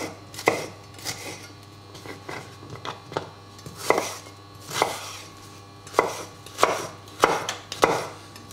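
Chef's knife chopping a shallot on a wooden cutting board: irregular knocks of the blade striking the board, roughly one a second, some in quick pairs.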